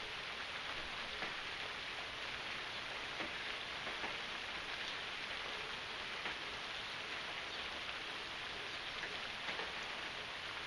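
Steady rain falling: an even hiss with scattered individual drops ticking at irregular moments.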